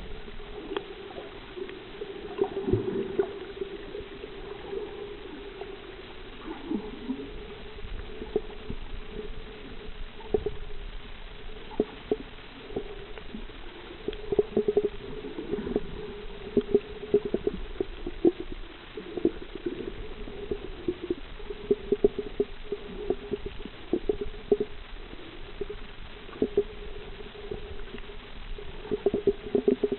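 Underwater sound picked up by a submerged camera: a muffled steady hum with many irregular clicks and pops.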